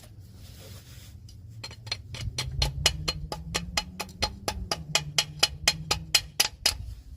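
Hammer tapping a steel wheel-cylinder retaining clip on a drum-brake backing plate: quick, even metallic taps about five a second, starting a couple of seconds in, over a low hum.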